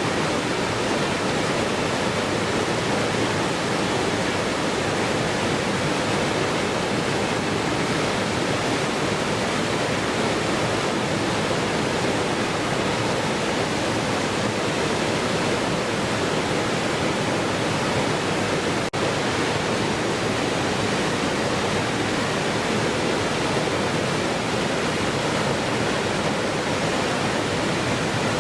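Waterfall rushing in a steady, even roar of falling water, with a split-second dropout about two-thirds of the way through.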